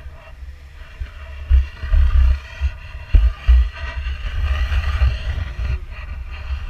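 Wind buffeting the microphone aboard a boat at sea, a low rumble that comes in uneven gusts, strongest about one and a half seconds in and again around three seconds, over a steady background hiss.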